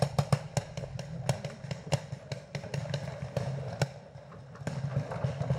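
Paintball markers firing: an irregular string of sharp pops, several a second, that thins out about four seconds in and picks up again near the end.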